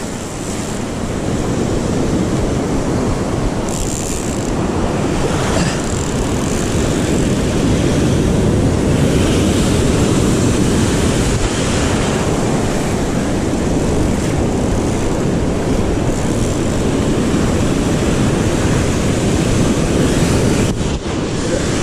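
Rough sea surf breaking on the rocks, a continuous loud rushing roar heavy in the low end.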